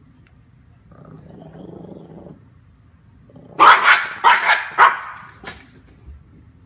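Small dog growling low, then letting out a quick run of about four loud barks and snarls as it spins around chasing its own tail.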